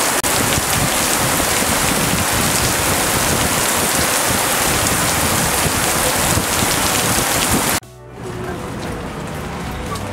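Heavy rain pelting wet asphalt, a dense steady hiss of splashing drops. It cuts off suddenly near the end.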